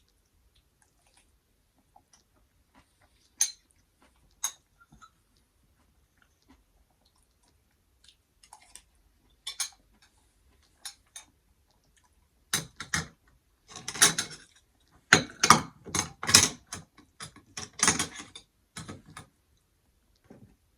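Eating sounds: a few scattered clicks, then from about twelve seconds in a dense run of clinks and scraping from a utensil against dishes.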